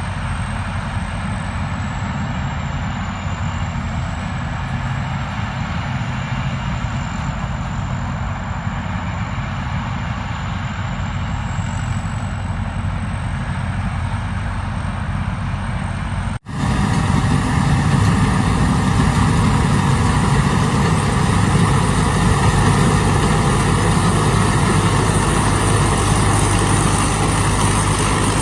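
Combine harvester's diesel engine running steadily. About halfway through the sound cuts out for an instant and comes back louder.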